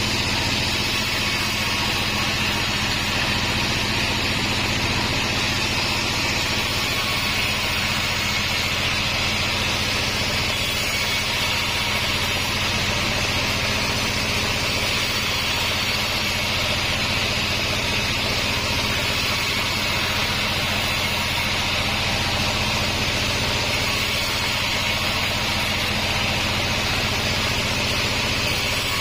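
A band sawmill runs steadily, its motor humming evenly with a constant higher-pitched noise, with no change in pitch or level.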